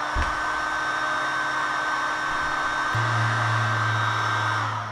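Handheld heat gun blowing steadily: a rush of air with a thin fan whine over it. It is heating a rear sprocket's pressed-in drive pins to loosen them for punching out, and it winds down near the end. A steady low hum joins about three seconds in.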